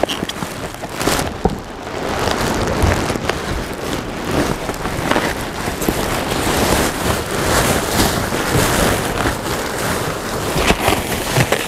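Rummaging through a dumpster: plastic bags and cardboard boxes rustling and crackling, with scattered knocks as things are shifted.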